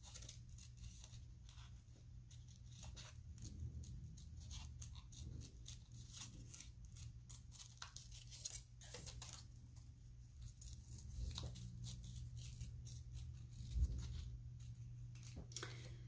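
Small scissors snipping through printer paper: a faint run of irregular short snips, with paper rustling, over a low steady hum.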